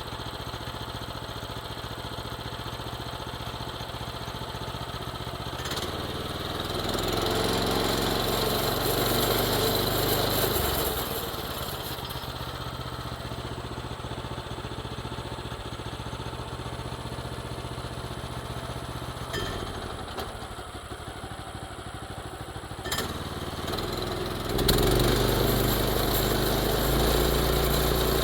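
Sawmill's small gasoline engine running steadily at low speed, throttling up to a louder, higher run twice: about six seconds in for a few seconds, and again near the end.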